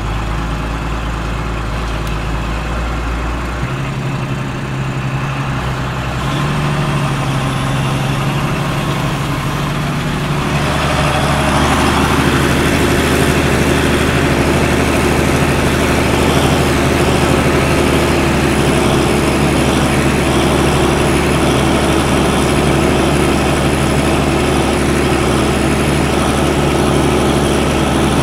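Case CS 150 tractor's diesel engine running steadily while driving across a field. About ten seconds in the engine sound gets louder and fuller, then holds steady.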